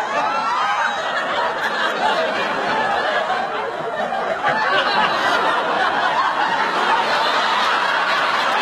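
Studio audience laughing steadily, many voices overlapping, with a slight lull about four seconds in.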